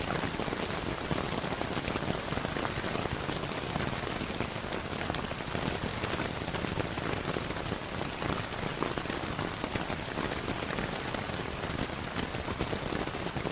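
Steady rain falling, a dense even hiss made of countless small drop patters.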